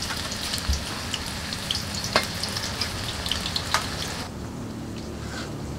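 Cubes of tofu frying in hot oil in a wok, sizzling with many small pops and crackles. The sizzle drops away sharply a little after four seconds in, leaving a quieter low background.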